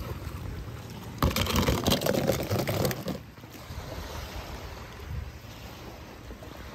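A toy car splashing into swimming-pool water about a second in, a noisy splash lasting about two seconds, over a low steady rumble of moving water.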